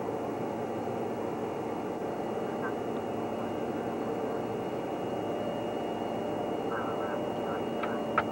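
Steady machinery hum and hiss with a constant high-pitched whine from the underwater survey vehicle carrying the camera, with one sharp click near the end.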